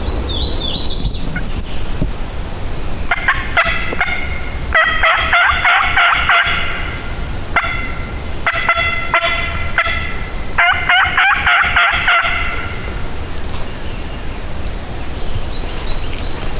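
Wild turkey gobbler gobbling, about five rattling calls in quick succession over ten seconds.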